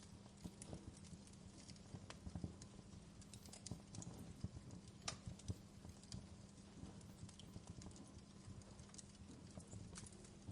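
Wood fire crackling faintly in a fireplace, with irregular sharp pops and snaps over a steady low rumble.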